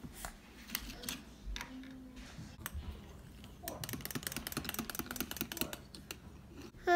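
Small mechanical toy bunny clicking as it moves on a wooden floor: a few separate clicks and knocks, then a rapid, even run of clicks, about a dozen a second, lasting about two seconds from a little past the middle.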